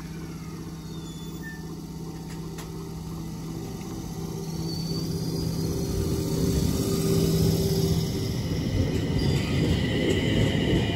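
JR East E721 series electric multiple unit starting away from a station platform: a steady hum at first, then rumble from the wheels and running gear that grows louder as it gathers speed, with a whine from the inverter and traction motors climbing in pitch near the end.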